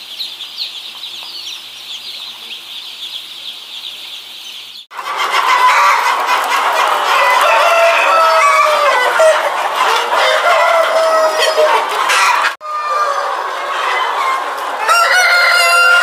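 A mass of chicks peeping high and fast, switching suddenly about five seconds in to a large flock of hens clucking and cackling loudly. Near the end a rooster crows over the flock.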